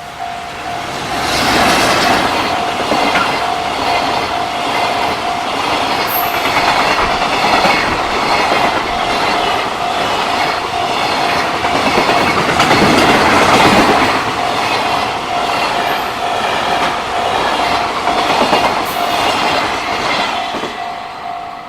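JR Freight train hauled by an EF210 electric locomotive passing close by, loud from about a second in and easing off near the end. A level-crossing warning bell keeps ringing in a steady repeating tone underneath.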